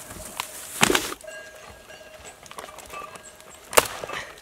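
Dry dead branches of a fallen tree rustling, scraping and cracking as a person climbs through them on foot, with two loud sharp cracks, about a second in and near the end.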